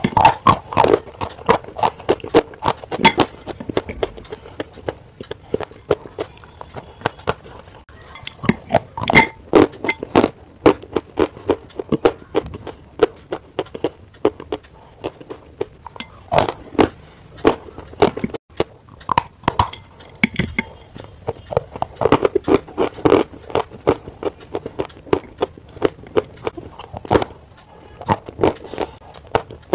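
White chalk being bitten and chewed close to the microphone: quick runs of sharp, dry crunches in clusters of a few seconds, with short pauses between. Now and then a chalk piece clinks on the glass plate.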